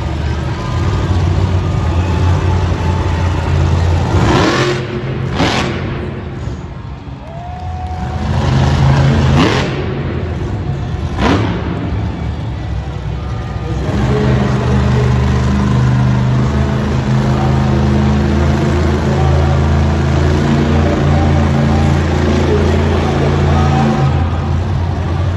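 Monster truck's supercharged V8 engine revving hard while it holds the truck up on two wheels. The pitch surges up and down twice, around four to six seconds in and again around nine to eleven seconds, then the engine holds a steady high rev.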